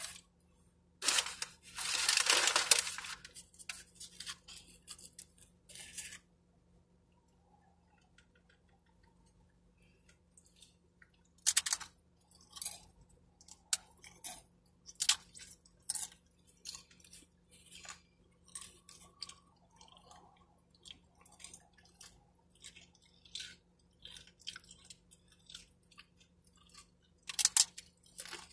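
Close-up eating of tortilla chips: crisp crunches and chewing, many short sharp snaps scattered through the second half. About a second in there is a louder burst of noise lasting about two seconds.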